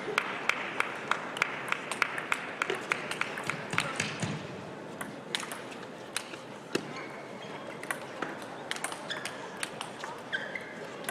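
Table tennis rally: the celluloid ball clicking off the rackets and the table in quick alternation, about three or four hits a second, until the rally ends about four seconds in; after that only a few scattered clicks. Voices murmur in the hall behind.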